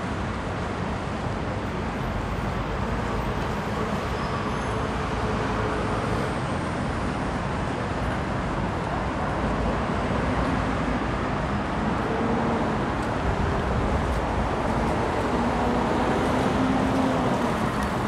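Steady city street noise dominated by road traffic, an even rumble of passing vehicles.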